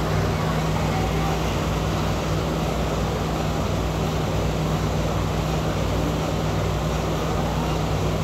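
Steady machine hum with a constant low drone under an even rushing noise, unchanging throughout.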